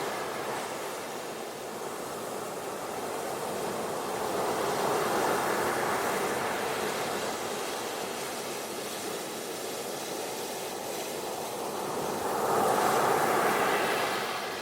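Ocean waves breaking and washing on a beach, swelling twice, about midway and again near the end.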